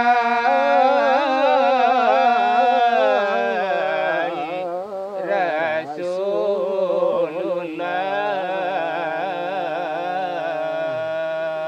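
Two men singing salawat dulang, the Minangkabau devotional chant, in a long melismatic line with constantly wavering pitch. In the last few seconds the line settles into a long held note. No tray beats are heard.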